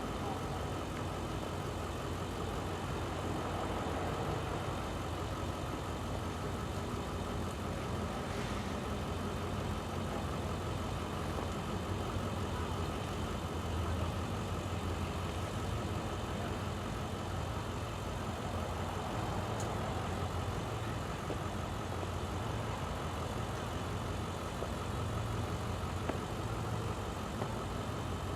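An engine idling steadily, a constant low hum with no revving or passing.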